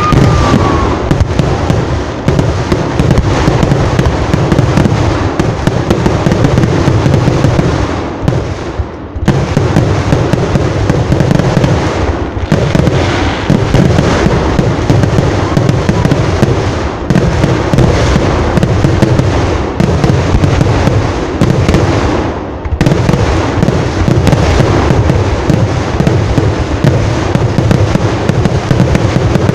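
Loud, dense barrage of fireworks and firecrackers: rapid cracks and bangs merging into a near-constant din, with a few brief lulls.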